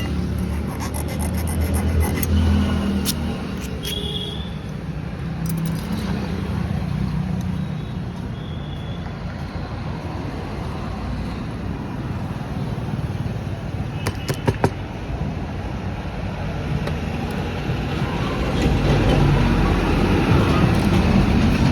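Steady low rumble of motor vehicle engines, swelling slightly near the end, with a few sharp clicks about fourteen seconds in.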